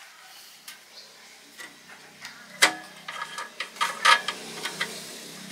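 Metal clicks and clinks as the latch on the steel blade housing of a homemade banana-trunk chopper is worked open by hand, with sharper knocks about two and a half and four seconds in.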